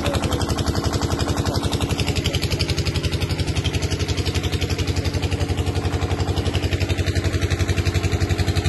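An engine running steadily at a constant low speed, with a rapid, even chugging beat.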